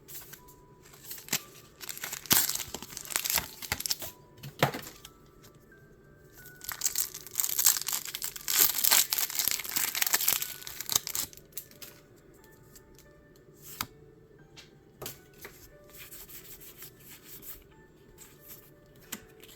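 Pokémon card packaging being torn open: crinkly plastic and foil wrapper tearing and crumpling in two main spells, a couple of seconds in and again in the middle. Between them it is quieter, with a few single crackles.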